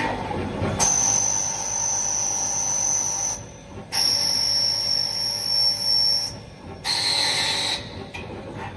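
CNC machine cutting metal: three separate cutting passes, each a steady high-pitched whine over a hiss that starts and stops abruptly, the first two long and the last one short and lower in pitch.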